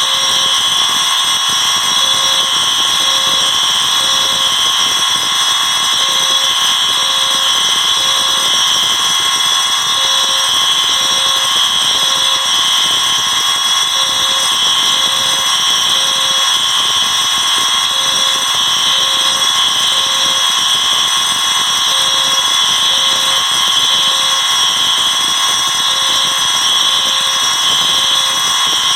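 Dozens of fire alarm horns, bells, sirens and speakers sounding at once, a loud, unbroken wall of alarm tones. One lower tone pulses in sets of three with a pause, the temporal-three evacuation pattern.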